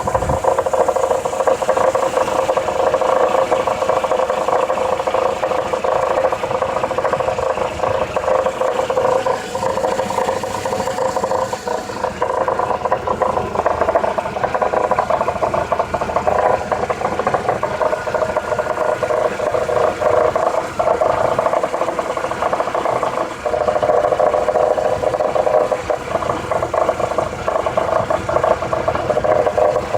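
Mercedes-Benz E200 (W210) running with a steady, continuous rattle and whir, the strange noise the owner is trying to identify.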